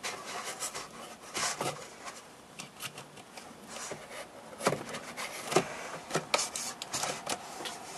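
Cardboard packaging being handled while a zip tie holding the product in the box is worked free: irregular rustling, scraping and small clicks, with a couple of sharper clicks a little past halfway.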